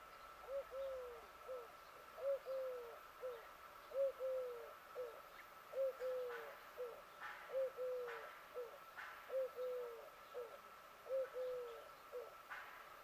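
A dove cooing in a three-note phrase, short, long and falling, then short, repeated about every two seconds, seven times over.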